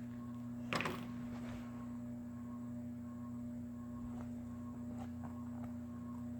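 A steady low electrical hum, with one short sniff about a second in and a few faint clicks afterwards.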